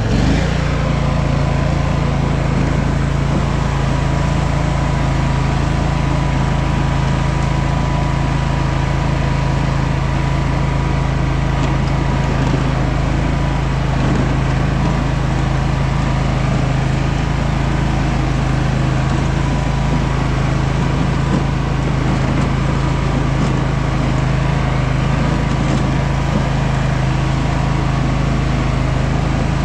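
Simplicity 16 hp riding lawn mower's engine revving up right at the start, then running at a steady high speed as the mower drives along. Its throttle is rigged with twine to the brake, so it revs up as soon as the brake is let off.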